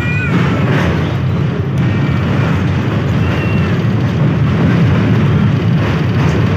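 Passenger train rolling slowly across a river bridge at about 20 km/h, heard from inside a closed coach: a loud, steady low rumble of wheels on the rails.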